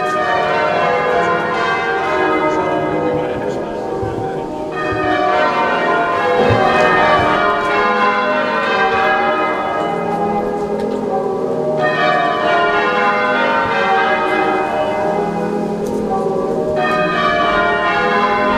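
Church bells ringing changes, a continuous peal of many overlapping tones with no pauses.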